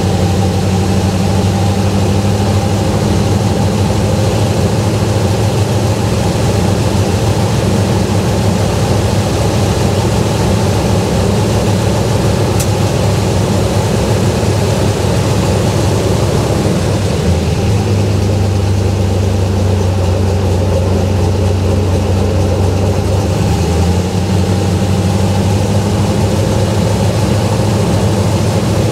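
An airboat's 5.3-litre V8 idling steadily, turning an 80-inch three-blade WhirlWind carbon-fibre prop. The engine runs on a richened mixture, with an air-fuel ratio of about 13. Its idle pitch shifts slightly about seventeen seconds in and again near twenty-four seconds.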